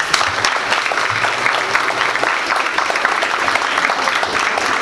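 Audience applauding: dense, steady clapping that starts all at once.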